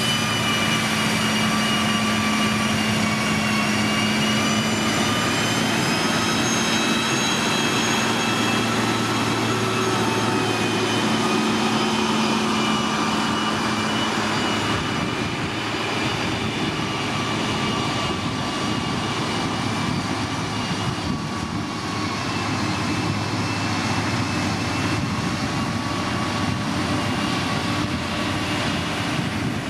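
Heavy road-building machinery's diesel engine running steadily, its pitch drifting slowly up and down, with a high whine above the engine note.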